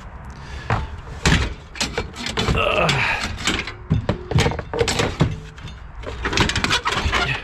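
A run of sharp knocks and clunks, like doors or hard objects being shut and moved around a car, with a brief squeak about two and a half seconds in.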